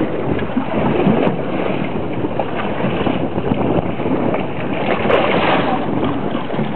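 Steady wind noise on the microphone over the wash of choppy sea water against a small boat's side.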